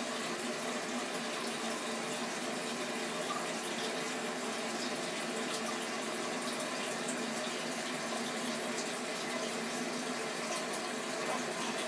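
A Siamese cat urinating into the water of a toilet bowl: a steady, unbroken trickle of liquid.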